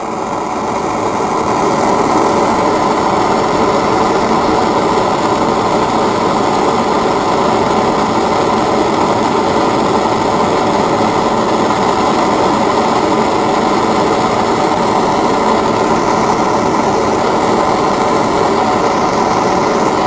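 Handheld propane torch burning with a steady rushing flame, heating a small steel part held in pliers to red hot for oil blackening. The sound builds over the first couple of seconds, then holds level.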